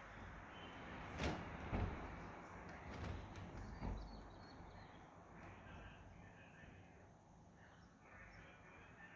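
Wind on the microphone outdoors, with a few soft knocks in the first four seconds and faint bird chirps in the second half.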